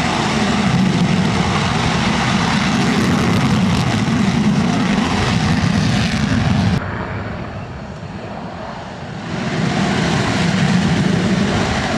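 Aircraft engine noise, a loud steady roar. It drops off abruptly about seven seconds in and swells back up about two seconds later.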